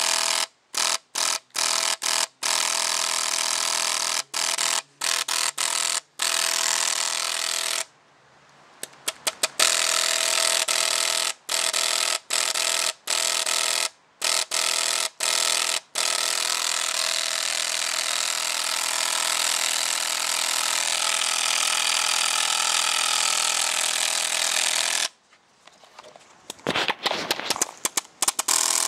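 SL74 electronic paintball marker firing on uncapped ramping, shots so fast they run together into a buzzing rattle. It fires in strings broken by brief pauses: choppy bursts in the first few seconds, a long unbroken string from about ten seconds to twenty-five, then a stuttering run near the end.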